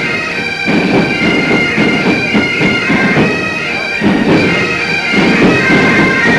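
Highland bagpipes playing a march tune, the chanter melody over steady drones, with a recurring low pulsing underneath.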